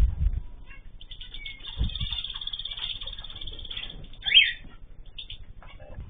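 Aviary birds calling: a fast, buzzing twitter for a few seconds, then one louder, short falling call about four seconds in. Low thumps come at the start and about two seconds in.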